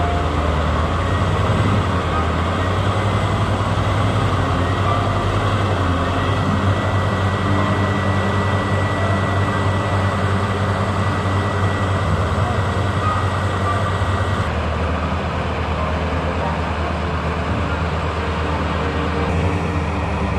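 Caterpillar 966F wheel loader's six-cylinder diesel engine running steadily under load as it pushes against a marble-laden truck stuck in mud, with a thin high whine over the engine through the middle.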